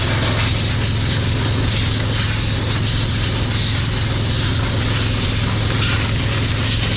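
Heavy diesel engine running steadily at idle: an even low hum with a constant hiss above it.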